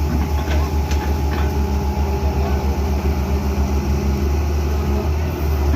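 Heavy-equipment diesel engine running steadily, with a fast, even low pulsing.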